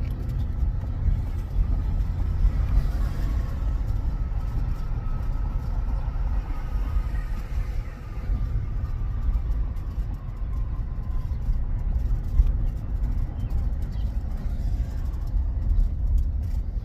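Car driving: a steady low rumble of road and engine noise from inside the cabin, with a faint tone slowly falling in pitch through the middle.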